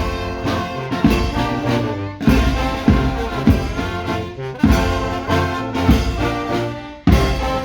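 Brass band playing live: trumpets and trombones sounding sustained chords over a steady drum beat, with a brief pause about seven seconds in before the next phrase.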